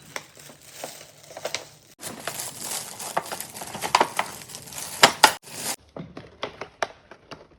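Gift wrapping paper crinkling and crackling as a present is unwrapped, densest in the middle and thinning to scattered crackles near the end.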